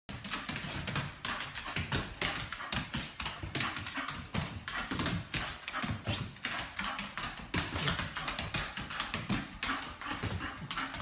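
A dog making short low sounds amid rapid, irregular tapping and clicking.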